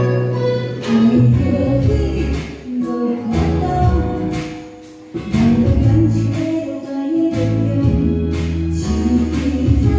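Woman singing a pop song into a handheld microphone over a recorded backing track with guitar. The music dips briefly about four to five seconds in.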